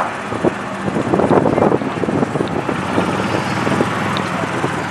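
A car engine running at low revs, with wind rumbling on the microphone.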